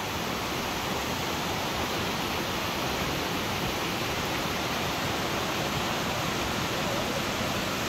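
Steady rushing of Multnomah Falls, its creek pouring over the lip of the cliff.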